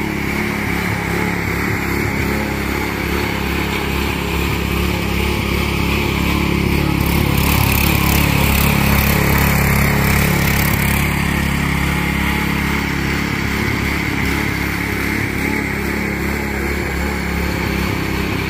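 212cc single-cylinder small engine on a lawn-tractor go-kart running steadily under load, driving the kart through a centrifugal clutch and belt; it grows louder in the middle as the kart passes close, then eases off.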